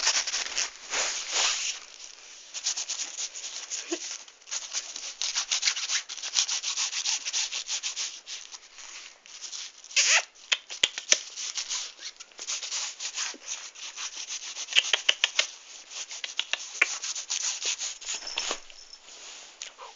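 Close rubbing and scratching noise in irregular short strokes.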